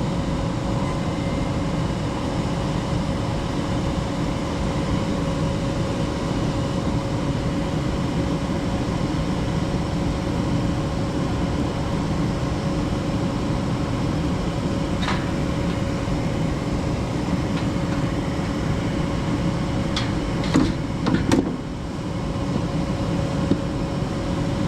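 Gas furnace running in heating mode just after start-up: steady rushing noise with a steady hum. A few sharp clicks and rattles from handling, once about fifteen seconds in and in a cluster about twenty seconds in, the loudest moments.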